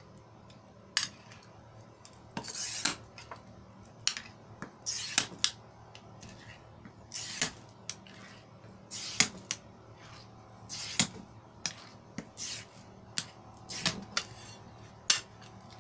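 Diamond-tipped glass cutter scoring mirror glass along a ruler: a series of short, scratchy strokes roughly a second apart, with sharp clicks among them.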